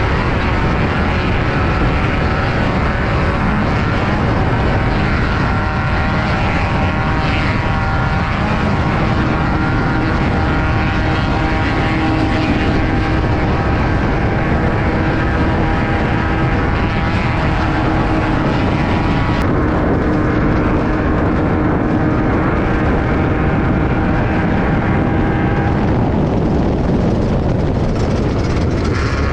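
Class 5/1600 off-road race car's air-cooled VW 1600 flat-four engine running hard at high, nearly steady revs, heard from inside the car over a constant rush of tyre, gravel and chassis noise.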